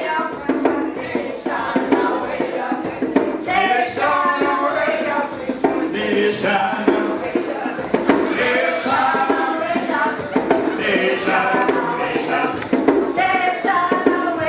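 Group singing of a Guyanese kwe-kwe song, led by a man on a microphone, in repeated phrases with short breaks between them.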